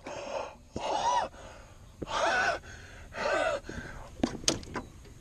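A man gasping and crying out wordlessly in excitement over a big bass he has just landed: three short breathy cries about a second apart. A few sharp clicks follow near the end.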